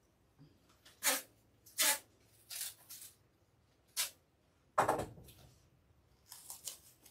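Handling noises from someone moving about and picking things up: a series of short rustles and clatters about once a second, with a louder thump about five seconds in.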